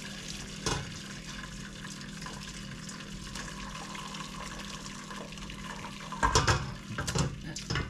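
Fish stock being poured from a pot through a strainer into another pot, a steady pour of liquid. There is a single knock about a second in, and clanks of the pot and strainer near the end.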